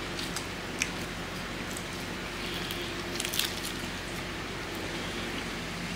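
Eating a nori-wrapped rice ball: a bite and chewing with a few sharp mouth clicks about three seconds in, over a steady low hum.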